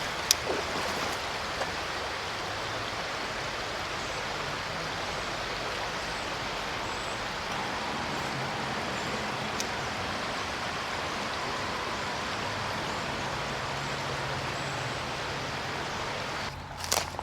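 Creek water rushing steadily over shallows. Near the end the rushing drops away suddenly and a few knocks follow.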